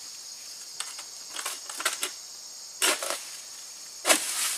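Oil palm harvesting sickle (egrek) on a long pole being pulled through the palm crown: a series of short rustling, scraping crackles from the blade and fronds, the loudest near the end. A steady high insect buzz runs underneath.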